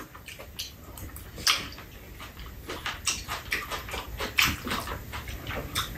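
Close-up eating noises from two people at a meal: wet chewing and lip-smacking in quick, irregular clicks, with the odd spoon knocking a bowl.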